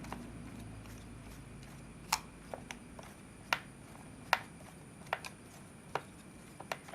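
Irregular sharp clicks and taps of hands working on a laptop's plastic case and parts, about ten over several seconds, with the loudest a little after two seconds in. A faint steady high whine runs underneath.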